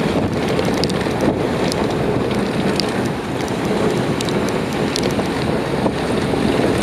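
Wind buffeting the microphone of a moving camera: a dense, steady rumble, with scattered light clicks and rattles over it.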